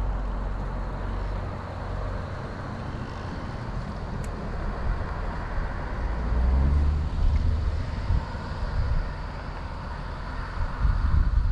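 Steady road traffic noise, with a louder low rumble swelling about six seconds in as a vehicle goes by, and wind buffeting the microphone near the end.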